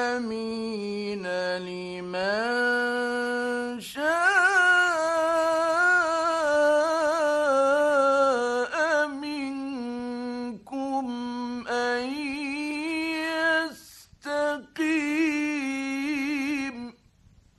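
A male Quran reciter chanting in the melodic mujawwad style. He holds long ornamented notes with a wavering vibrato across several phrases, with short breaks between them, and stops shortly before the end.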